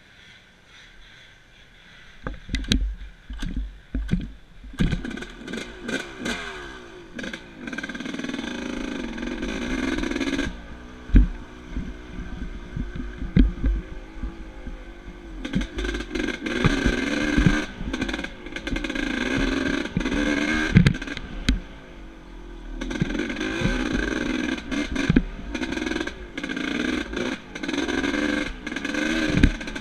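A 1989 Yamaha YZ250WR two-stroke dirt bike being ridden. The engine picks up about two seconds in and then revs up and down with the throttle, broken by sharp knocks as the bike hits bumps in the trail.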